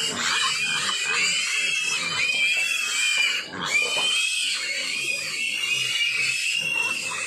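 A pen of young piglets squealing together at feeding time: many overlapping high-pitched squeals rising and falling without a break.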